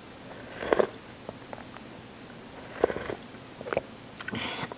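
A short slurp as broth is sipped from a spoon, about a second in, then a few softer mouth sounds and small clicks as the spoon goes back into the bowl near the end.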